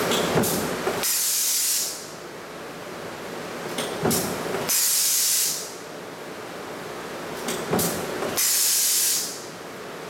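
Power stamping press running a progressive die that stamps spring seats, cycling about every three and a half to four seconds. Each stroke gives a sharp clank, followed shortly by a loud hiss of compressed air lasting under a second. There are three cycles.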